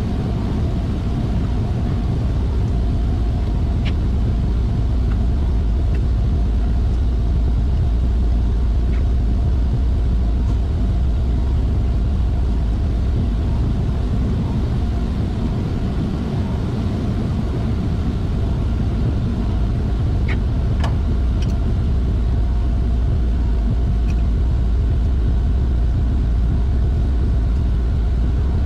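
Steady drone of industrial machinery in a chiller plant room: a low rumble with a constant hum over it, and a few faint metallic clicks, about 4 seconds and 21 seconds in.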